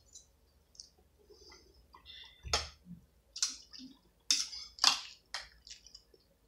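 Metal fork clinking and scraping against a metal pot while twirling spaghetti: a quick string of about five sharp clinks in the second half, with fainter small rustles before them.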